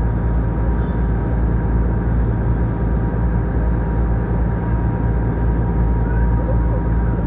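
River ferry's engine running steadily, a loud low drone with a faint steady whine above it.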